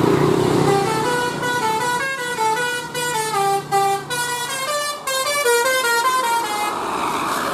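Telolet Basuri multi-tone bus horn on the Cebek Jaya bus playing a quick melody of short stepped notes, starting about a second in and stopping shortly before the end, with the bus's engine running underneath.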